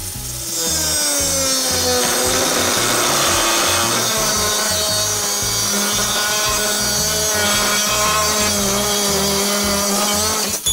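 Angle grinder cutting through a steel plate: a loud, continuous whine that sags in pitch over the first couple of seconds as the disc bears into the metal, then holds steady until it stops near the end.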